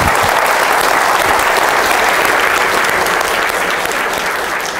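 Audience applauding: many hands clapping steadily, beginning to fade near the end.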